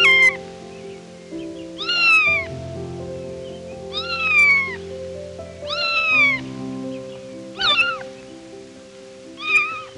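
A domestic cat meowing about six times, roughly every two seconds, each meow short and most of them falling in pitch, over soft background music.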